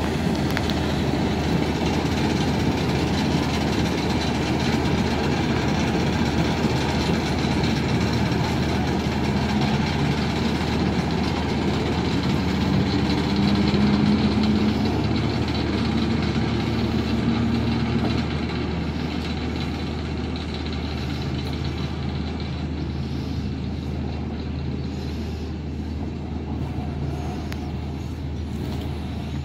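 Class 08 diesel-electric shunter's English Electric six-cylinder diesel engine running as the locomotive moves along the track. It is loudest about halfway through, when a faint whine joins it, then drops off somewhat.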